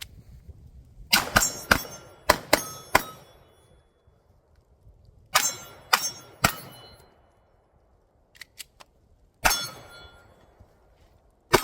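Pistol shots fired at steel targets, each crack followed by the ring of the struck steel. The shots come in strings: about six quickly starting about a second in, three more around the middle, one more later, and another right at the end, with pauses between strings.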